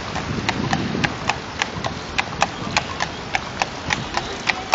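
Carriage horse's shod hooves clip-clopping on asphalt, an even beat of about four steps a second, over steady background noise.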